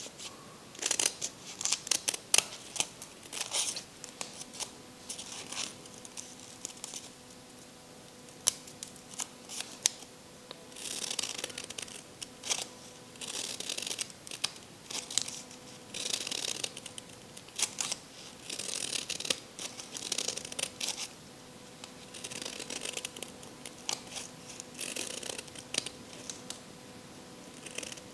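Scissors snipping through folded craft paper: many short snips, with paper rustling between them.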